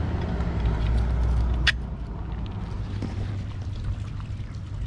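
A plug being handled at a weatherproof outdoor outlet box, making one sharp click about two seconds in. A steady low hum stops with the click and a lower, even noise carries on.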